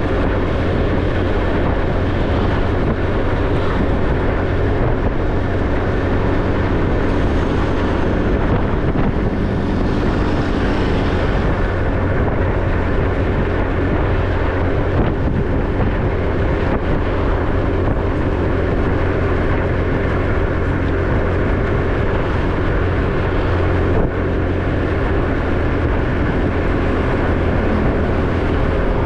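An ordinary motorbike's engine running steadily while riding on the road.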